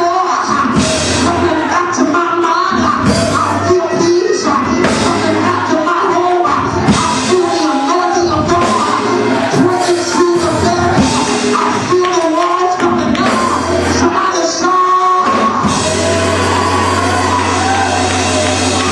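Loud live church praise music with singing: a band with drums and voices. A held low bass note comes in near the end.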